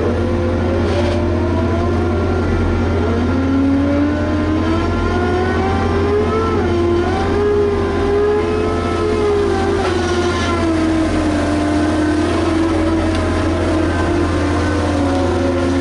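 Diesel engine of a Liebherr HS 8200 dragline working under load over a steady low drone. The engine note climbs slowly over several seconds, holds, then settles back lower about two-thirds of the way through.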